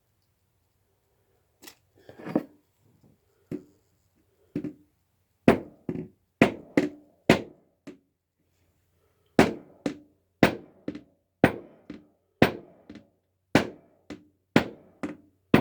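Hammer tapping fret wire into the fret slots of a guitar fretboard: a string of sharp knocks with a short ring, starting about two seconds in and settling to about two taps a second.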